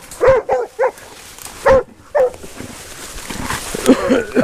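Hog-hunting dogs barking at a wild boar hog, a quick run of short, sharp barks, with a lull and then more barking near the end.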